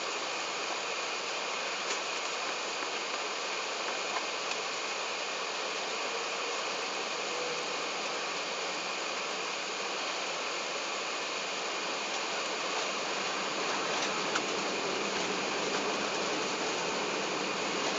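Steady rushing cabin noise inside an Airbus A380 taxiing: the hiss of the cabin air supply over the engines turning at low taxi power, growing slightly louder in the last few seconds, with a few faint ticks of cabin fittings.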